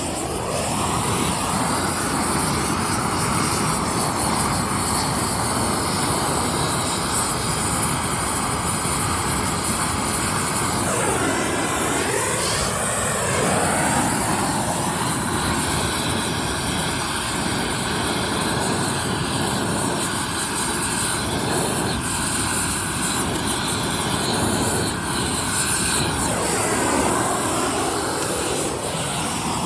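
Propane torch burning steadily as it heats old rubber subframe bushings to burn them out. Its tone sweeps a couple of times as the flame is moved.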